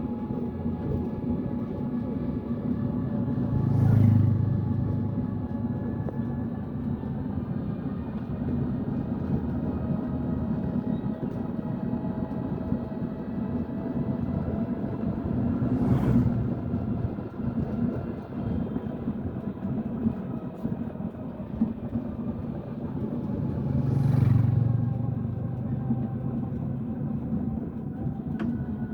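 A steady low engine rumble that swells louder three times, each swell with a brief sharp click.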